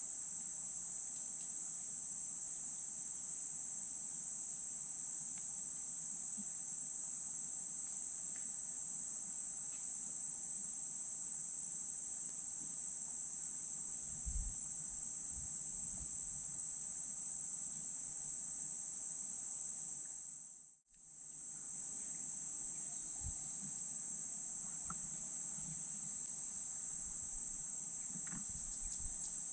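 Insect chorus: a steady, high-pitched drone that drops out briefly and returns about two-thirds of the way through, with a few soft low knocks.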